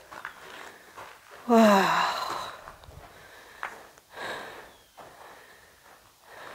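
A person breathing, with one breathy, falling "wow" about two seconds in, a single sharp click about a second later, and another breath just after.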